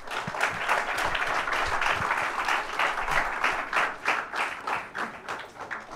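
Audience applauding: dense clapping that starts at once, then thins out and fades near the end.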